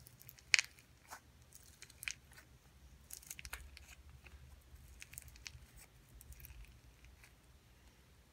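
Fingers poking and squeezing floam slime, foam beads packed in white-glue slime in a plastic tub: scattered crunchy crackles and pops, the sharpest about half a second in, then small clusters of crackling.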